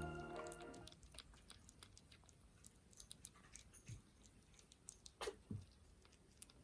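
Faint small clicks and wet mouth noises from 22-day-old kittens moving about, with one short squeak falling in pitch a little after five seconds in. Background music fades out in the first second.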